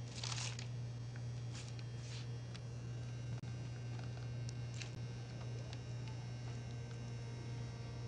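Steady low electrical hum, with a few brief soft rustling noises in the first half.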